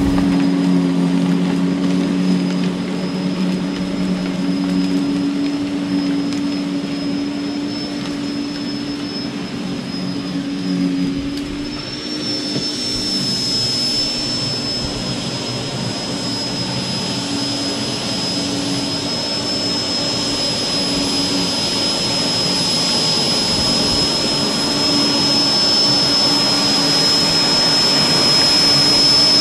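Rock & Rocker 16-inch 15-amp corded electric dethatcher running steadily, a high motor whine over a lower hum, as its tines, lowered to setting two, rake dead grass out of the lawn. It grows quieter as it moves away and louder again over the last part as it comes back.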